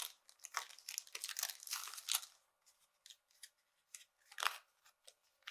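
Paper wrapper of an adhesive bandage packet being torn and peeled open by hand: a dense run of crinkling and tearing for about two seconds, then a few scattered crackles and one louder rustle later on.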